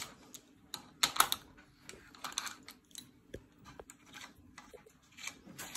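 Scattered light clicks and taps of fingers working a rusty nut on a bolt in a pit bike's aluminium fork clamp, with a small cluster about a second in and another around the middle.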